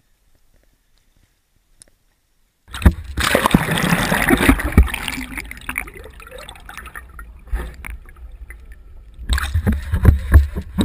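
Near silence for the first few seconds, then water splashing and sloshing with knocks around a pole-mounted action camera as it is dipped underwater and lifted out. It quietens in the middle while the camera is submerged, then gets loud again near the end.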